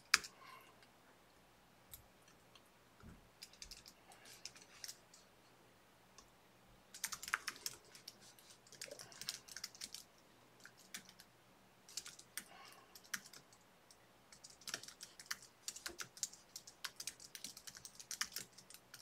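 Typing on a computer keyboard: short bursts of keystrokes separated by brief pauses.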